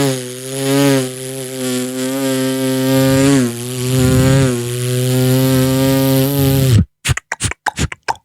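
Beatboxer's vocal imitation of a fly: a steady low buzzing hum for about seven seconds that dips in pitch twice, then breaks off into a few quick mouth clicks near the end.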